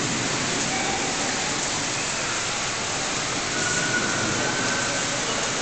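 Steady rushing water in the sea otter pool, an even, unbroken wash of noise.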